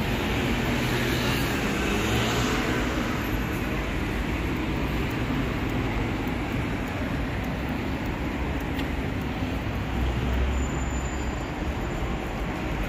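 Steady city street traffic noise: a continuous low rumble of cars and buses passing.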